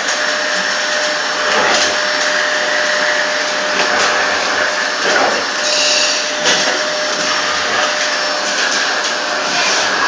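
Vacuum cleaner running with a steady whine, its hose nozzle pushed at a dog that bites at it. The suction sound changes briefly a few times, around four and six seconds in, as the dog mouths the nozzle.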